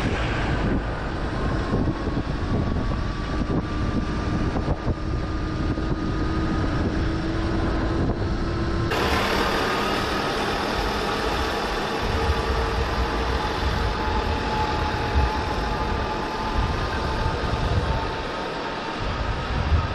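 Vehicle driving on a paved road, heard from on board the Land Rover Defender: steady engine and tyre rumble with a faint tone rising slowly. About nine seconds in the sound changes abruptly to a brighter, steady mechanical hum with several fixed tones.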